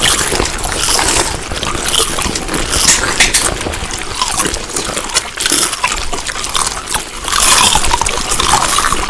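Close-up wet chewing and mouth smacking, a dense run of crackles and squelches, louder for the last couple of seconds.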